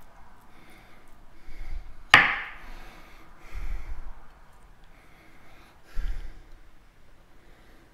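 A kitchen knife scoring the rind of a pork loin roast on a wooden chopping board, with one sharp knock of the blade against the board about two seconds in.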